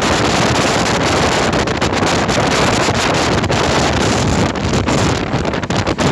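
Loud wind buffeting a phone microphone held out of a moving train, mixed with the train's steady running noise.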